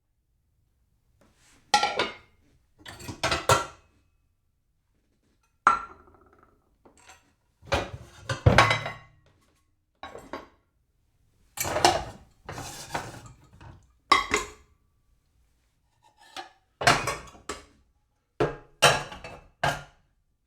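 Dishes being shuffled and stacked: a dozen or so separate short bursts of clinking and clattering plates and cutlery, with gaps of silence between them.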